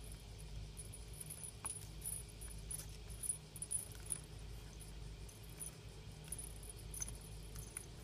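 Faint light ticks, clicks and rustles of a kitten batting at a feather wand toy and scrabbling on a cardboard scratcher, scattered irregularly over a low steady hum, with a few slightly louder clicks a little past the middle.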